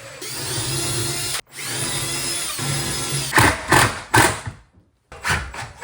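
Cordless drill driving screws while a sink is fastened to a kitchen cabinet. The motor whines steadily in two runs, the first cutting off abruptly, and these are followed by several short, loud bursts of the drill in the second half.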